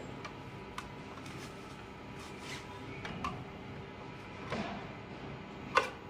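Light taps and clicks of a scooter's front mudguard being handled and fitted around the front wheel and fork, with one sharp, louder knock near the end. A faint steady hum runs underneath.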